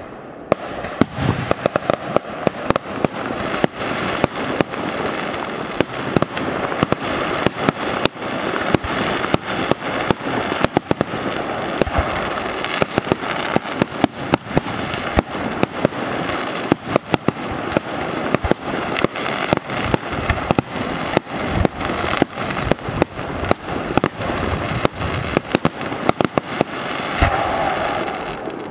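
Aerial fireworks display: shells bursting in rapid, irregular bangs, several a second, over a continuous crackling hiss from the bursting stars.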